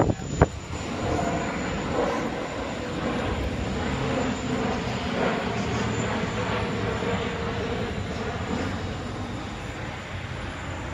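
Engines of a large Airbus aircraft in a flying display passing overhead, a steady engine noise with a few humming tones that swells about a second in and eases slightly near the end. Two sharp knocks at the very start.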